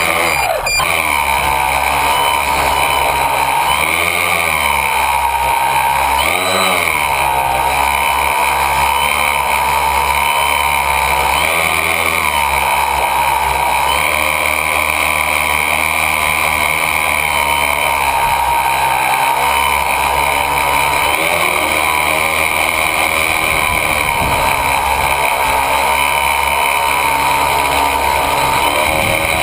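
A tricopter's three electric motors and propellers, recorded from its onboard camera: a loud, steady buzzing whine. The pitch rises briefly and falls back several times in the first half as the motors speed up, then holds steadier.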